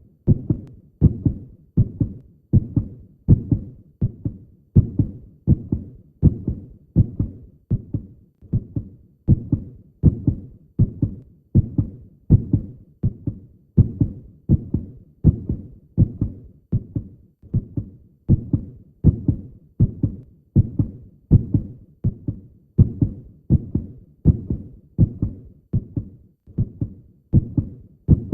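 Heartbeat: a steady lub-dub, each beat a pair of low thumps, repeating evenly at about 75 to 80 beats a minute.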